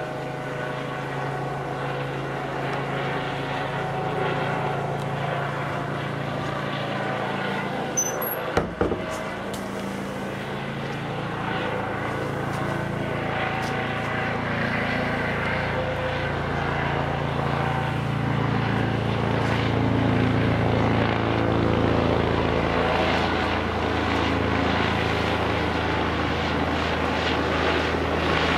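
Helicopter flying overhead: a steady engine drone that grows louder over the second half. There is a brief knock about eight seconds in.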